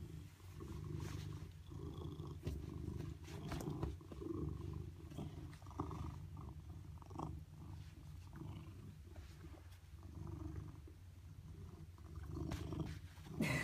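Domestic cat purring steadily, close up, as a low continuous rumble.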